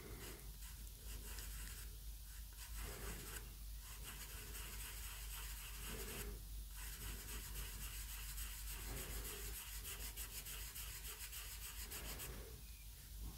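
Soft pastel rubbing on paper: faint, scratchy strokes as colour is laid down and worked in, a little louder in a couple of stretches.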